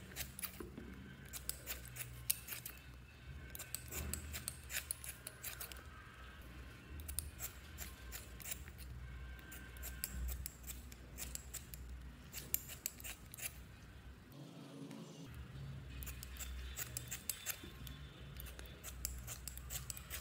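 Metal scissors snipping through foam makeup sponges: runs of quick, crisp snips with short pauses between them.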